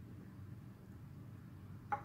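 Quiet room tone with a steady low hum, and one short, sharp ringing click near the end.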